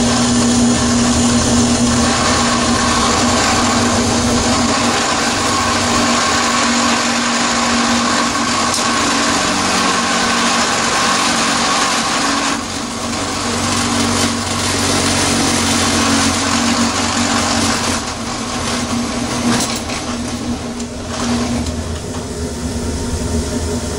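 Drill press running at high speed, with a spinning metal rod in its chuck pressed down onto a bolt head to friction-weld the two: a steady motor hum under a rough rasp of metal rubbing on metal. The noise drops a little about halfway through and wavers near the end.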